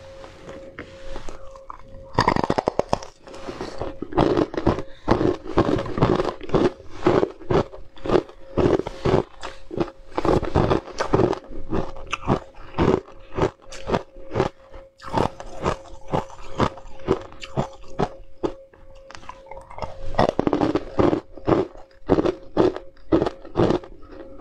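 Ice cubes being bitten and chewed close to the microphone: a continuous run of loud, sharp crunches, about two a second.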